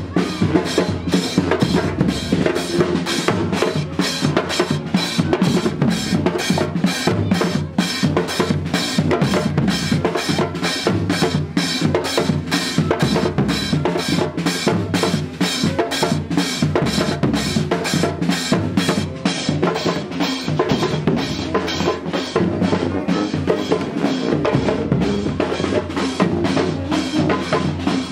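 Drumming with a steady, even beat of about two strokes a second.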